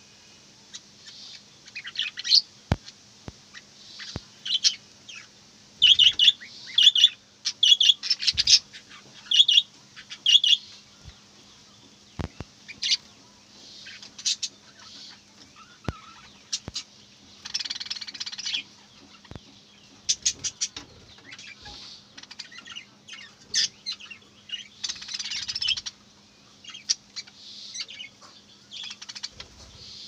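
A flock of budgerigars chirping and chattering in short, high warbles, with a run of evenly repeated chirps about six seconds in and two longer, raspier bursts in the second half.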